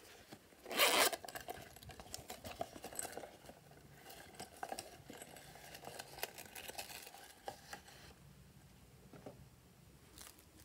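Zipper of a pink silicone heart-shaped pouch being pulled open with one quick, loud rasp about a second in. After it come scattered rustles, light scrapes and clicks as the soft pouch is squeezed and foam glitter hearts are taken out, fading out after about eight seconds.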